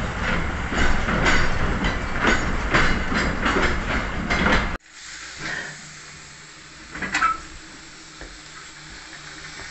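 Carriage of a small steam train running on its track, a loud rumble with the wheels clacking over rail joints about twice a second. About halfway through it cuts off suddenly to a much quieter steady hiss of steam from the standing steam locomotive, with one brief louder sound a couple of seconds later.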